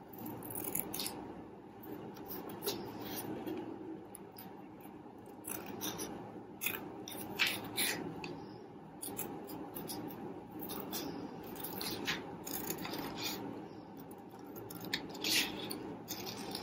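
Scissors cutting through paper in a series of short, irregular snips.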